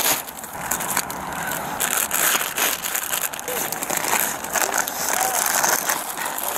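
Plastic bags rustling and crinkling as they are handled right at a police body camera's microphone, a steady stream of crackles and scrapes.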